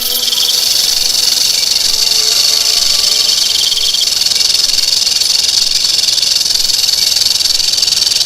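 Rattlesnake shaking its tail rattle: a steady, dense, high-pitched buzz.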